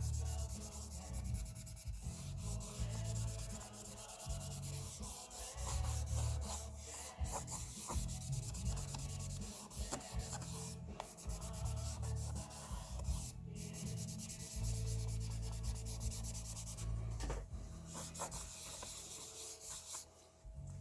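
Continuous close rubbing and scraping with irregular low bumps, like hands handling and wiping a small object right at the microphone.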